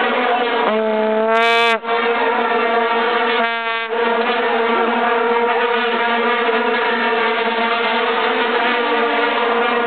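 Many vuvuzelas blowing together in a loud, steady drone of overlapping notes, with one horn close by sounding a single clear blast about a second in.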